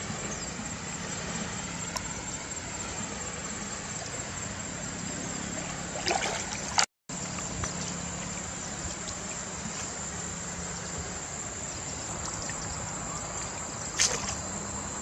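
Steady river water noise with a faint low hum, broken by two brief splashes as a cast net is worked in the water: one about six seconds in and one near the end. The sound cuts out for a moment just before seven seconds in.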